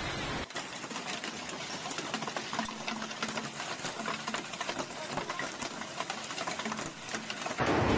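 Hailstones pelting down, a dense rapid clatter of many small impacts that starts abruptly about half a second in.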